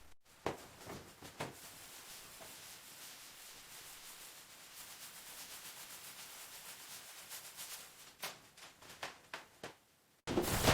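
Abrasive rubbing on a surface, a steady faint scratchy stroke sound such as hand sanding, with a few light knocks at the start and again near the end.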